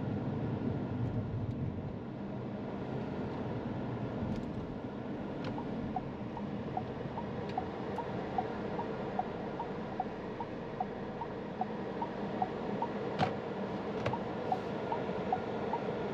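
Cabin noise of a SsangYong Torres slowing in traffic, then from about six seconds in the turn-signal indicator ticking at a steady pace in an alternating tick-tock, the same indicator sound as other SsangYong models. One sharper click stands out near the thirteen-second mark.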